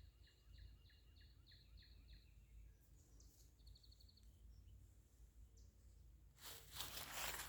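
Faint small songbird singing: a run of about seven short, evenly spaced high notes, then a brief rapid trill. Near the end a louder burst of rustling noise.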